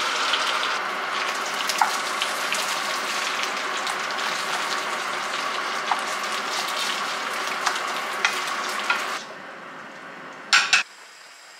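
Basmati rice sizzling in hot olive oil in a frying pan as it is stirred with a wooden spoon, with small clicks of the spoon against the pan. The sizzle drops off sharply about nine seconds in, followed by one short noise near the end.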